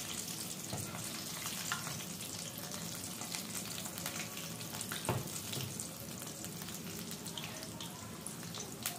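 Batter-coated potato chips deep-frying in hot oil in a wok: a steady sizzling hiss with fine crackle, the chips partway done and starting to brown. A slotted metal spatula stirs them, giving a few light taps against the pan.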